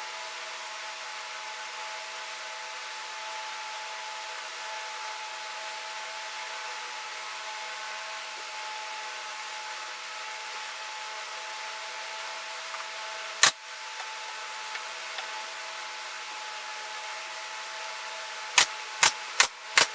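A steady hum and hiss with a few fixed whining tones, like a power tool running in a woodshop. It is broken by one sharp knock about two-thirds of the way through and four quick knocks, a little under half a second apart, near the end.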